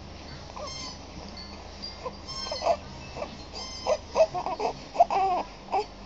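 Infant crying in short, fussy bursts that come faster and louder in the second half, the loudest about five seconds in.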